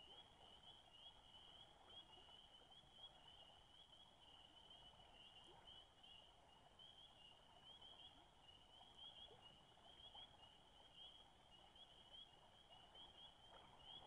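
Near silence: faint outdoor ambience with a steady, high-pitched trill of rapid chirps.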